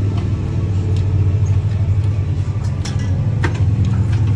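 A steady, loud, low motor drone, with a few sharp metallic clicks about three seconds in.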